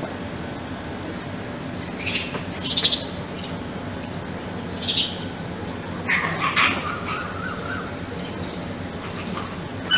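A few short, shrill animal calls, the last a longer squeal, over a steady background hiss and low hum.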